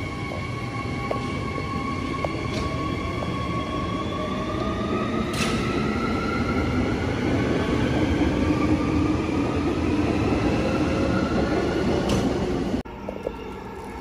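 Alstom C-series electric railcar pulling away, its traction motors whining with several tones that climb steadily in pitch over the rumble of the wheels. Shortly before the end the sound cuts off suddenly to quieter station ambience.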